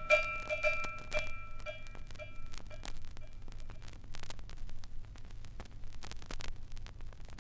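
The closing notes of a song on a vinyl LP: a bell-like tone struck about four times a second, fading out over the first three seconds. Then the record's surface noise in the gap between tracks: scattered crackle and clicks over a steady low hum.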